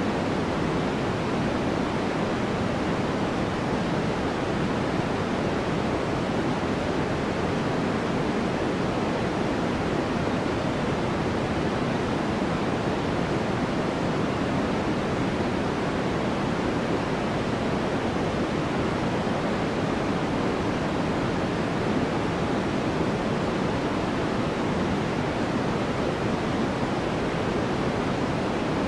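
Generated white noise: a constant, even hiss that does not change, fuller in the low and middle range than in the treble.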